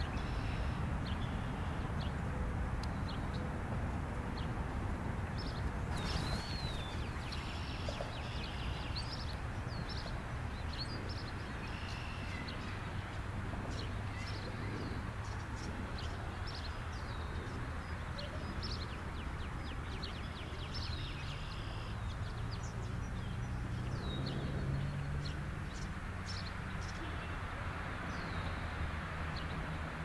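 Wild birds chirping and calling, many short high calls scattered throughout, over a steady low rumble. A low droning hum builds under it in the last third.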